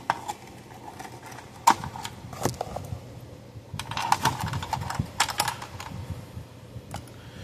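Light clicks and rattles, some in small clusters, as hands handle the plastic case and wiring of an electric fence energizer.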